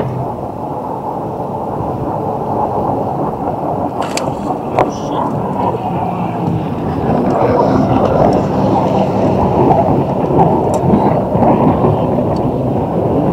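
Steady low rumble of wind buffeting the microphone, louder from about halfway through, with a couple of sharp clicks about four seconds in.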